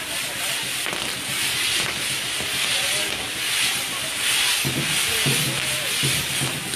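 Pyrotechnic castillo tower's spinning fire wheels burning, a loud rushing hiss of spraying sparks that swells and fades in waves.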